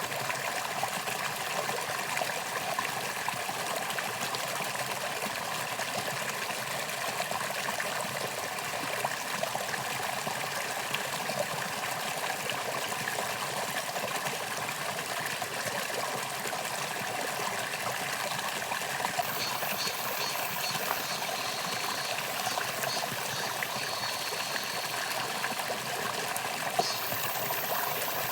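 Mountain stream flowing steadily over rocks, a continuous trickling rush of water. Short high-pitched repeated sounds come in about two-thirds of the way through, and a steady high-pitched sound near the end.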